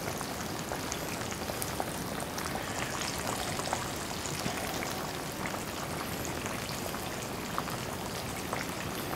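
Breaded green tomato slices deep-frying in canola oil in an electric fry pan: a steady sizzle and bubble with scattered small crackles, sounding like the oil is cooling down a little.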